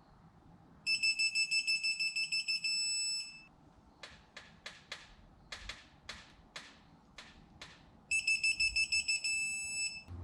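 Digital torque wrench beeping rapidly as each case-half bolt reaches its set angle, twice, with a run of ratchet clicks between the two beeps as the next bolt is turned.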